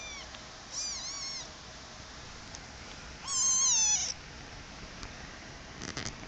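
Young black-and-white kitten meowing three times: a short meow at the start, another about a second in, and a louder, longer meow about three and a half seconds in. A few quick knocks near the end.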